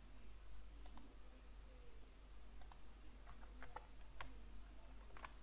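Faint computer mouse and keyboard clicks: about ten short clicks at irregular intervals.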